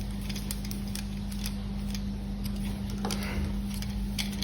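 Faint, scattered small clicks and ticks of plastic parts and small screws being handled as rollers are fitted to a Mini 4WD chassis, over a steady low hum.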